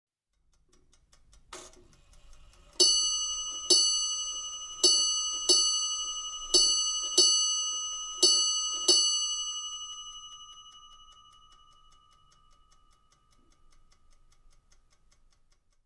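A doorbell's bell struck eight times, roughly in four quick pairs, each ring at the same pitch, then left to ring out and fade over a few seconds. A faint click comes just before the first ring.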